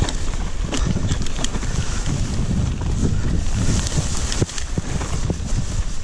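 Wind buffeting the action camera's microphone during a mountain bike descent on a grassy trail, a steady low rumble, with a few sharp clicks and rattles from the bike over bumps.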